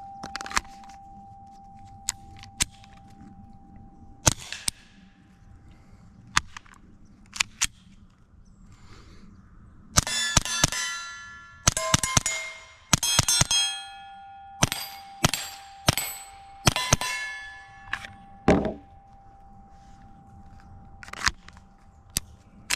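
Suppressed rifle shots through an AAC Halcyon suppressor, each followed by the ring of a struck steel target. Single shots a second or two apart come first, then quick strings of shots in the middle, with a target ringing on in one steady tone between hits.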